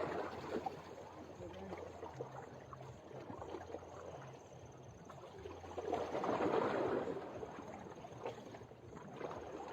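Water splashing and lapping around a small fishing boat, with two louder surges, one at the start and one about six seconds in.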